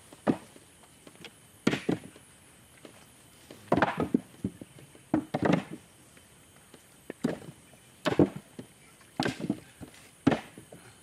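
Coconuts thudding and knocking: a heavy blow every one to two seconds, some as quick double or triple knocks.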